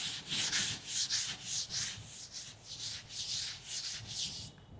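Chalkboard duster wiping chalk off a blackboard in quick back-and-forth strokes, about two to three a second, stopping shortly before the end.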